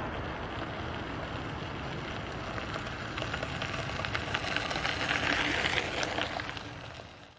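Distant jet noise from a Boeing 737-800's CFM56-7B turbofans as the airliner rolls out after touchdown: a crackling roar that swells around four to six seconds in, then fades out near the end.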